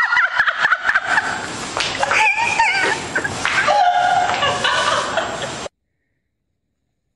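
People shrieking, squealing and laughing in high, wavering voices, with one held squeal about four seconds in. It cuts off suddenly at about five and a half seconds.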